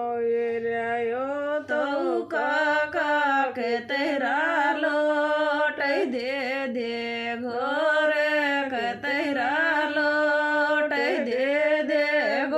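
A woman singing a folk song unaccompanied, drawing the words out into long held notes that bend and waver.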